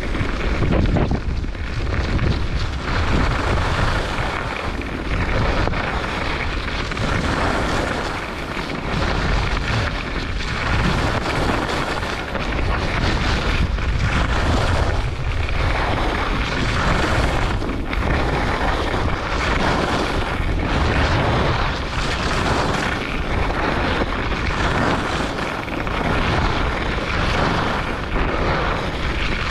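Wind buffeting the microphone and skis hissing and scraping over groomed snow on a fast downhill run. The sound swells and eases with each turn, about every second and a half.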